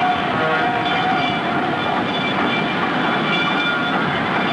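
A train running: the steady noise of rolling rail cars, with several sustained high tones held over it.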